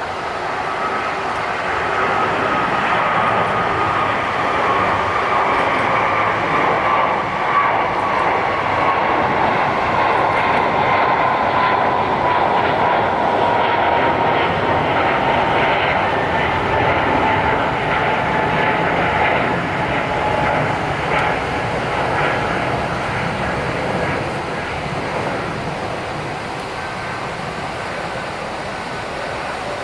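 Asiana Airlines jet airliner's engines passing close by: a loud, steady rush with a high whine that slowly falls in pitch, swelling about a second in and easing off gradually near the end.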